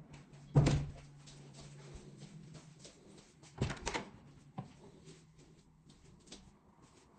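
A sharp knock about half a second in, then a short cluster of knocks around four seconds in, over a faint steady hum.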